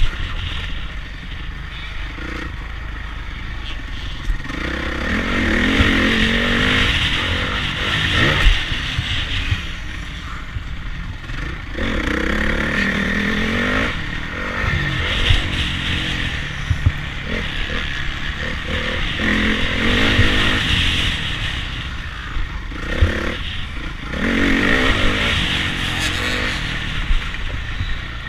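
Motocross bike engine heard from onboard, its revs rising and falling several times as the rider opens and closes the throttle around the track. Wind rush on the microphone and occasional knocks from bumps come through with it.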